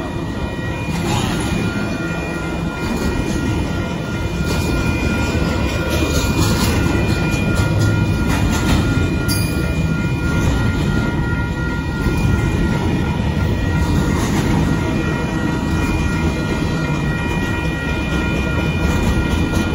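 A BNSF double-stack intermodal train's container well cars rolling through a grade crossing: a loud, steady rumble of steel wheels on the rails. A few thin, steady high-pitched tones sit over the rumble.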